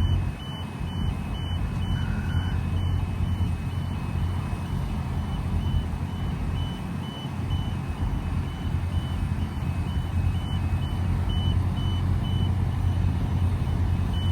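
A heavy vehicle's reversing alarm beeping steadily, a high beep a little more than twice a second, over the low, steady running of a big engine.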